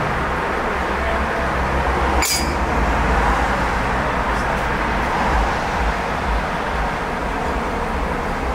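Steady low rumble of an idling truck engine mixed with road traffic noise, with a single sharp clink about two seconds in.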